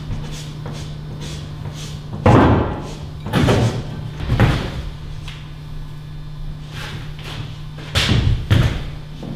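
A performer's heavy thumps and knocks on a stage floor, five in all at uneven intervals, the first and loudest about two seconds in and two close together near the end, over a steady low hum.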